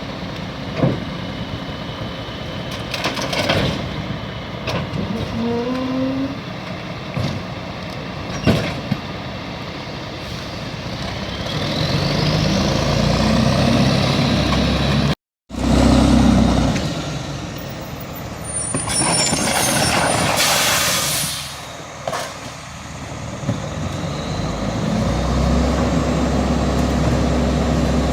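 Garbage truck at work: the engine runs with scattered knocks and clanks, and revs up with a rising tone about halfway through. About three-quarters through comes a loud hiss of air brakes, after which the engine settles into a steady low drone.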